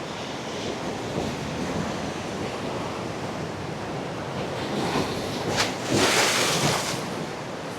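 Ocean surf breaking and washing in steadily, with wind on the microphone; a bigger wave surges in about six seconds in.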